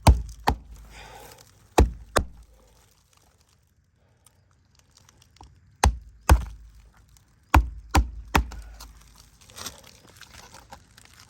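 Sharp knocks of nails being driven into asphalt roof shingles: four blows, a pause of about three seconds, then five more, with faint scraping near the end.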